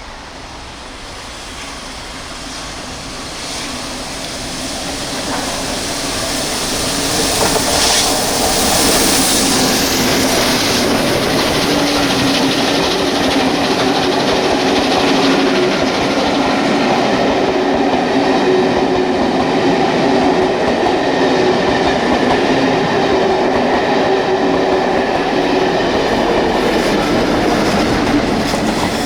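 Steam-hauled passenger train led by the Peppercorn A1 Pacific Tornado approaching and running past. The sound builds over the first eight seconds, with a brief hiss as the locomotive goes by, then the coaches rolling past steadily with a wheel-on-rail clatter.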